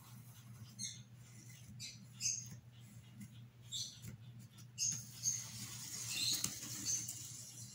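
Pencil scratching across cardboard poster board while tracing an outline: a few short strokes, then longer, continuous scratching from about five seconds in.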